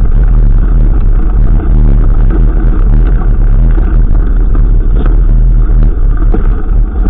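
Loud, steady wind rumble on a moving camera's microphone during a mountain-bike ride, with scattered small knocks and rattles from the trail.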